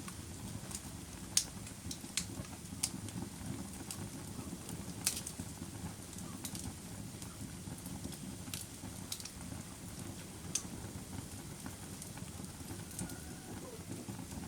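Campfire crackling: irregular sharp pops and snaps of burning wood, the loudest about a second and a half in, over the steady low hiss and rumble of the flames.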